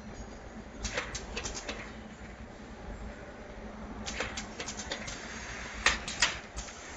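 Automatic tie-on face mask machine running, its mechanism making irregular clusters of sharp clicks and clacks over a steady low hum.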